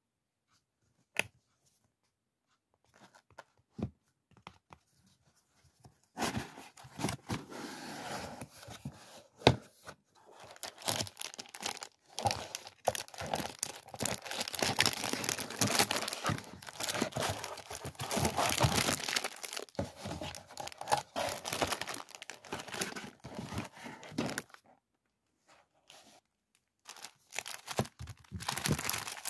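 A few sharp clicks, then hands rummaging in a cardboard box, crinkling and tearing cellophane-wrapped packs of paper and stickers. There is a short pause, then more crinkling of a plastic sleeve near the end.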